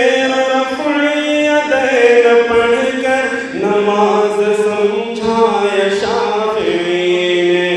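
A solo voice chanting an Urdu devotional manqabat in praise of Imam Abu Hanifa, drawing out long held notes that slide from one pitch to the next, with no clear words.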